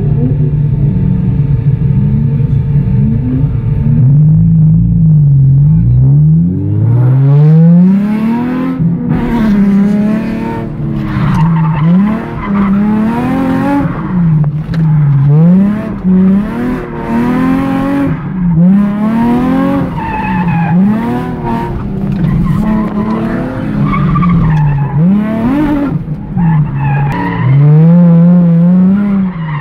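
Nissan 350Z's 3.5-litre V6, heard from inside the cabin, holds a steady note for the first few seconds. It then revs up and down about every second and a half through a drift, with the tyres squealing as the car slides.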